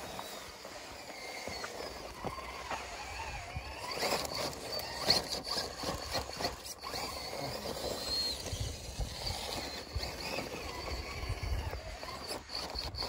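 Small electric RC rock crawler working over rock: a faint steady whine from its brushless motor and gears, with scrapes and knocks of tyres and chassis on stone.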